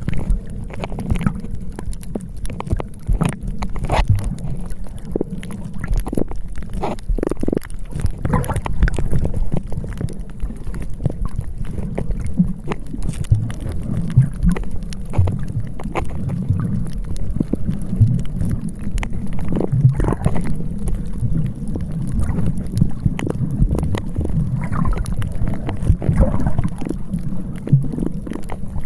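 Wind buffeting the microphone on a seaside beach: a continuous, uneven low rumble with frequent short crackles.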